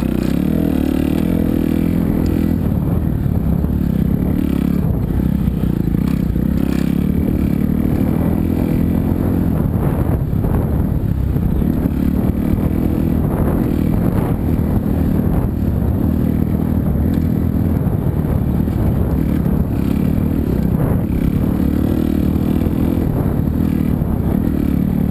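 Four-stroke 250 cc motocross bike engine heard close from the onboard camera, its revs rising and falling with the throttle as it rides over a dirt trail, with occasional knocks from the bumps.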